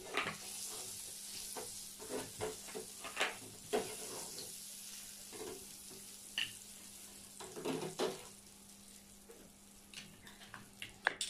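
Butter sizzling on the hot ridged griddle plate of an electric raclette grill, the hiss thinning out in the second half. Scattered clicks and scrapes of a fork and knife moving bread slices on the metal plate.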